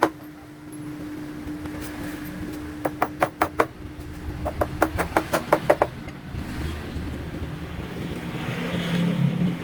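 Two quick runs of sharp knocks, about four and then about eight, several a second, over a steady low hum and background traffic noise.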